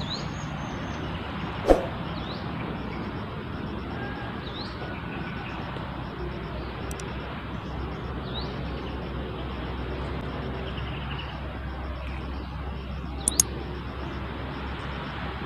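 Steady outdoor background noise with a few short, faint bird chirps. A single sharp click comes about two seconds in, and a quick pair of high clicks comes near the end.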